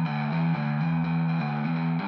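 Background music: a guitar-led instrumental with a steady pattern of repeating notes.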